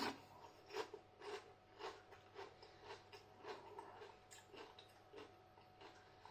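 Faint, steady chewing, about two chews a second, of a tortilla chip dipped in chilli and bean soup.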